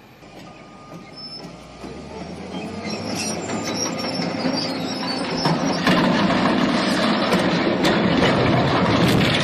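Steel legs and bracing of an elevated water tower bending and squealing as the tank tips over, a rumble of straining metal that grows steadily louder and jumps up about five and a half seconds in.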